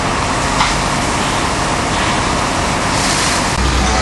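Steady rushing noise of a structure fire being fought: hose streams spraying and fire apparatus running. A deeper hum joins near the end.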